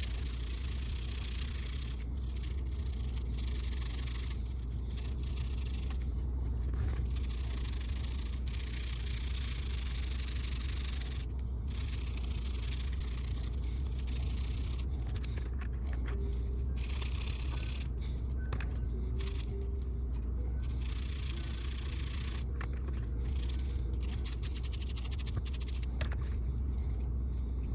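Scrubbing and scraping on a small die-cast metal car base, in stops and starts, over a steady low hum.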